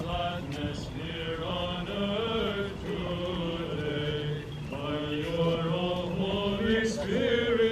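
Orthodox liturgical chant: voices singing a slow hymn in long held notes that glide from pitch to pitch, with a short breath about halfway through.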